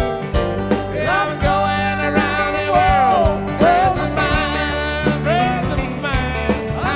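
Music: a song with a singing voice over a steady beat and bass, in a country or rock style.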